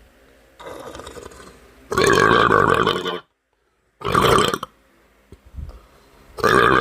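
A boy burping loudly three times: a long burp about two seconds in, a short one about four seconds in, and another near the end. A quieter hiss comes just before the first.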